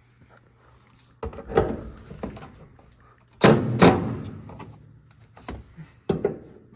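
A series of knocks and thumps from parts and tools being handled, with the two loudest close together about three and a half seconds in.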